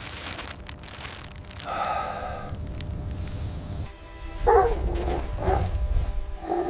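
Livestock guardian dogs barking in short bursts: once about two seconds in, then several times in the second half, warning off a prowling predator.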